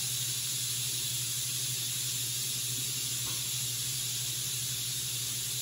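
Instant Pot electric pressure cooker venting steam through its release valve: a steady hiss as the pressure comes down, the float valve not yet dropped, so the lid stays locked. A low steady hum runs underneath.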